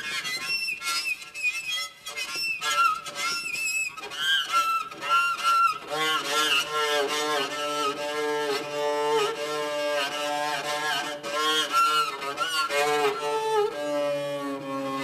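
Bowed strings of a homemade orcheguitar playing sliding, wavering notes in an experimental improvisation. Higher, broken notes come first; from about six seconds in, lower notes are held longer with a quick wobble in pitch.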